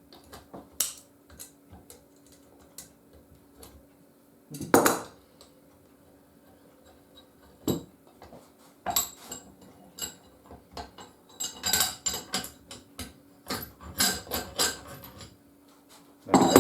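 Metal hand tools clinking, tapping and knocking against a bent nail used as a pin in a cast-iron bench vice as it is worked loose and pulled out. Scattered light clinks, a single louder knock about five seconds in and a quick run of clinks near the end.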